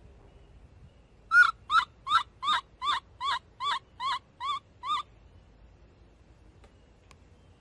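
Baby monkey screaming: a run of about eleven short, high cries, roughly three a second, starting about a second in and stopping about five seconds in.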